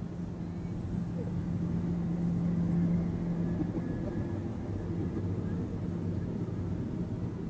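Hanomag Robust tractor's engine droning at high road speed as it runs alongside, heard from inside a car over steady road and wind noise. The drone swells to its loudest about two to three seconds in.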